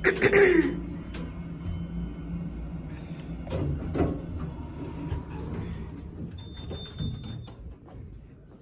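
Passenger elevator arriving at its floor: a loud clunk and rattle right at the start, then the sliding doors opening with a few knocks, over the car's low steady hum.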